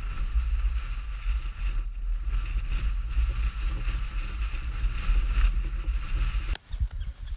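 Wind buffeting an exposed microphone: a steady, fluttering low rumble that drops away about six and a half seconds in.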